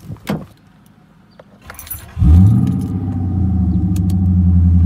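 A few clicks, then the Lexus LS400's 1UZ-FE V8 starts about two seconds in. It catches with a short flare of revs and settles into a steady fast idle on a cold start.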